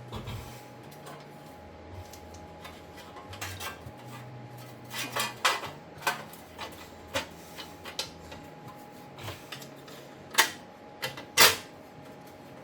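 Scattered metal clinks and taps as a new wheel hub assembly and its bolts are lined up and fitted by hand. A few sharper, louder clanks come near the end.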